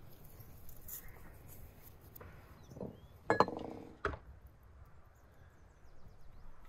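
Spoon clinking against an enamel bowl while stirring: one sharp ringing clink a little over three seconds in, then a lighter knock just after.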